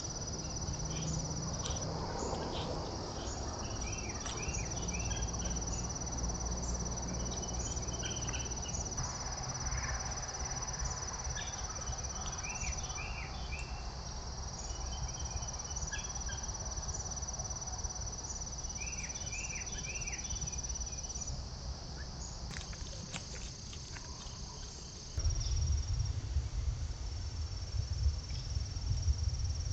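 Insects trilling steadily in a high, pulsing chorus, with short higher chirps scattered through it and a low rumble on the trail camera's microphone that grows louder near the end.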